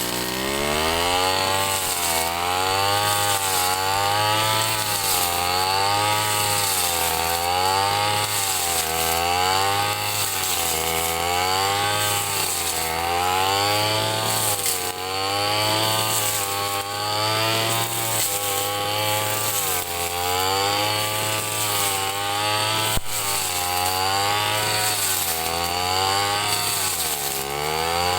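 Ryu two-stroke 30.5 cc brush cutter engine running at high speed, its pitch dipping and recovering about every two seconds as the blade is swept through the grass. One sharp click about 23 seconds in.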